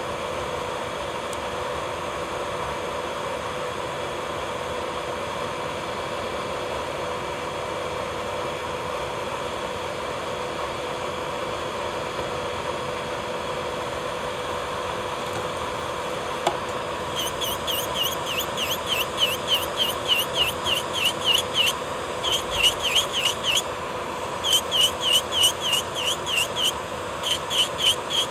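Electric nail drill (e-file) running at a steady high whine while thinning thick gel on a nail. About two-thirds of the way in, the bit starts working the gel in quick strokes, adding a squealing chirp about three times a second, with a short break near the end.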